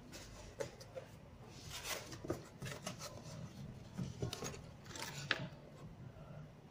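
Cardboard box being handled and set down on a workbench: scattered scrapes, rustles and light knocks, with a sharp click about five seconds in.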